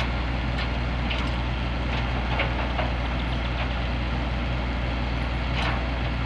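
Heavy diesel engine idling steadily, with a few short knocks now and then.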